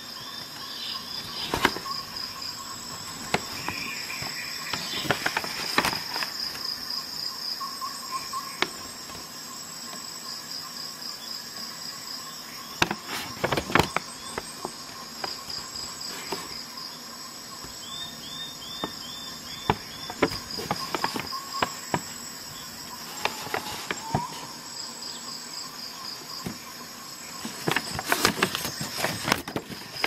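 Insects chirping steadily, a high pulsing trill, with occasional crinkles and crackles of a paper leaflet being handled, loudest twice: about halfway through and near the end.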